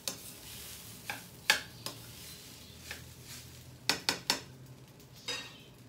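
Metal cooking utensil clinking and knocking against a pan while stirring rice: a series of sharp clinks, the loudest about a second and a half in and three in quick succession around four seconds.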